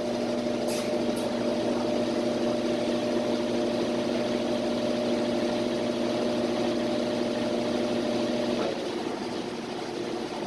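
Washing machine on its spin cycle, the motor and drum giving a steady humming whine over a rushing noise. About eight and a half seconds in, the higher hum tones drop out and it gets a little quieter, as the spin nears its end.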